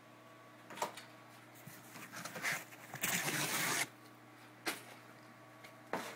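Cardboard and foam packing being handled: a few sharp knocks, with a noisy scraping rustle lasting under a second about three seconds in.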